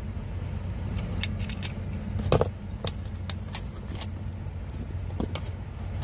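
Metal hand tools clinking and clicking against a brass air-line quick-connect fitting as it is tightened with a wrench: a scatter of sharp clicks, the loudest a little over two seconds in. A steady low hum runs underneath.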